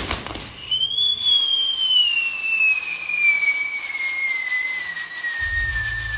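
A whistling firework burning on a fireworks castle (castillo): one long high whistle starts about a second in, rises briefly, then slides slowly and steadily down in pitch.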